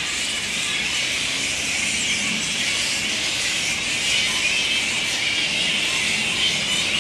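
A roosting colony of grey-headed flying foxes calling all at once: a steady din of many overlapping high-pitched squeals and chatters.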